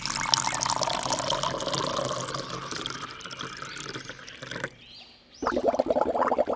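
Water pouring and trickling, easing off over about four seconds and then cutting off; about a second later a quick run of clicking starts.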